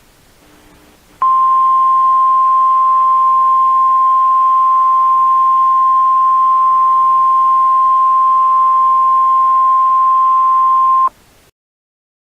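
Emergency alert attention tone: a single steady high-pitched tone held for about ten seconds, starting just over a second in and cutting off abruptly. Two faint short low beeps come just before it.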